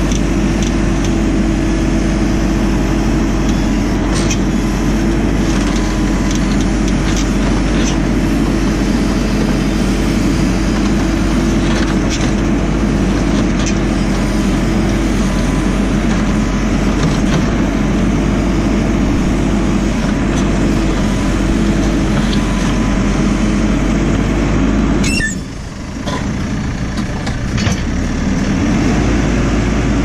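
JCB 4CX backhoe loader's four-cylinder diesel engine running steadily under load as the backhoe works the gravel, with a steady hum and a constant tone over it. Near the end the sound drops away briefly, then the engine revs back up with a rising tone.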